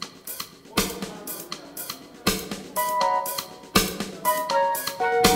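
Drum kit playing irregular kick, snare and cymbal hits, with held keyboard chords coming in about halfway through.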